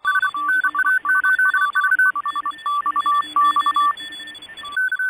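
A warbling two-tone data signal from a radio, switching rapidly between a lower and a higher pitch over receiver hiss. Near the end the hiss cuts off suddenly, leaving a few short bursts of the higher tone.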